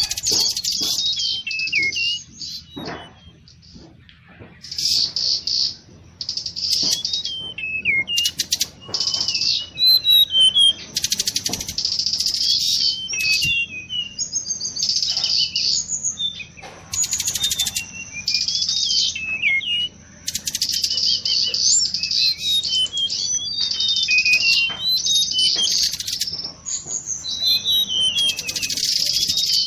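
Mangrove blue flycatcher song, played as a lure recording: repeated phrases of quick, high warbling notes with short pauses between them, over a faint steady high-pitched tone.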